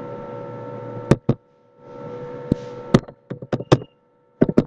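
Computer mouse clicks and keyboard keystrokes: about ten short, sharp clicks, several in quick runs, over a steady electrical hum that cuts out twice.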